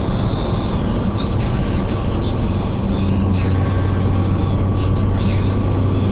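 A car driving, its engine and road noise heard from inside the cabin as a steady low hum.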